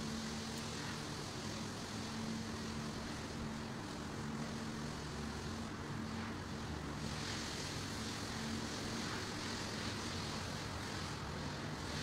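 Steady mechanical drone of milking parlour machinery: a low, even hum with a hiss above it that grows stronger about seven seconds in.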